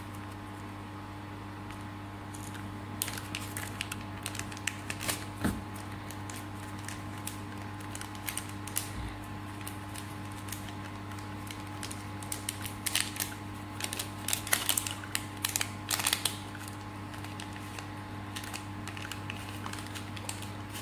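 Crinkling and clicking of a clear plastic zip-lock bag being handled and opened, coming in irregular bursts, thickest a little past halfway. Under it runs a steady machine hum.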